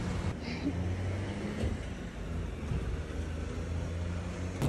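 Steady low hum of a vehicle engine running, as from road traffic.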